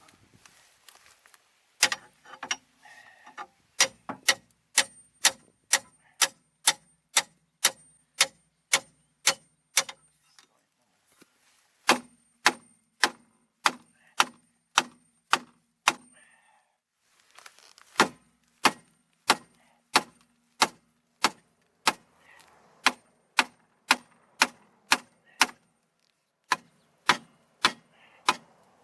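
Hammer blows on metal, about two a second in long runs with short pauses between them, each strike leaving the metal ringing. They are aimed at freeing a seized rear wheel and brake that have sat unused a long time.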